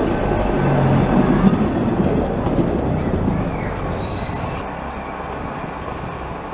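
Budapest cog-wheel railway car running past close by, a loud dense rattle of wheels on the rack track, with a brief high wheel squeal about four seconds in. The sound then drops suddenly to a quieter, steady running of a railcar further off.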